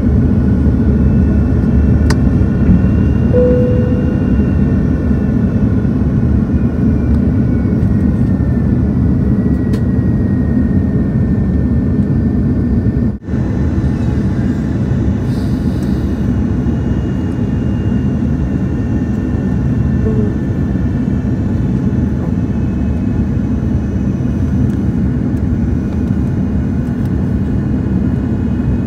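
Steady cabin roar inside an Airbus A330-300 on final approach: engine and airflow noise with faint whining engine tones that slowly drift in pitch. The sound cuts out for an instant about thirteen seconds in.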